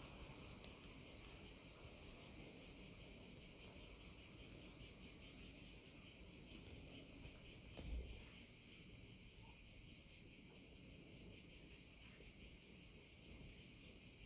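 Near silence: a faint, steady high-pitched hiss throughout, with a soft low bump about eight seconds in.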